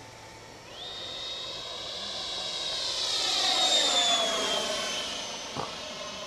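69 mm electric ducted fan of a model F-104 Starfighter jet (Wemotec Minifan with a Typhoon 2W20 motor on a 4S LiPo) whining in flight. The high whine rises sharply in pitch about a second in, grows louder as the jet flies past, then drops in pitch and fades as it moves away. A brief click near the end.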